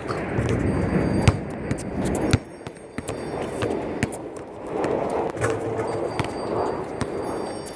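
Basketballs bouncing on an outdoor court: sharp, irregular knocks several times over a few seconds, with a low rumbling noise that drops away about two and a half seconds in.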